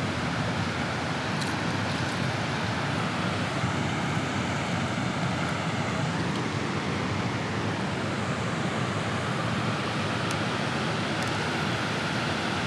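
Steady rush of water pouring through a dam's spillway gates and churning in the turbulent tailwater below.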